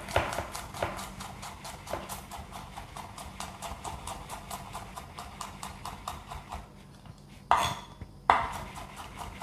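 Chef's knife rapidly mincing garlic on an end-grain wooden cutting board: quick, even knocks of the blade on the wood, about five or six a second, with a couple of louder knocks near the end.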